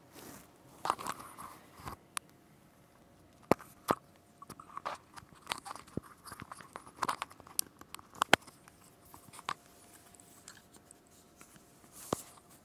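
Handling noise from a clip-on lavalier microphone being passed over and clipped onto a hoodie: scattered sharp clicks and knocks with rustling of cloth between them.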